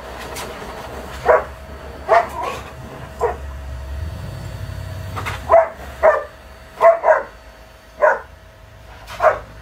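Large dog barking in short, sharp barks, about ten of them at uneven intervals, some coming in quick pairs.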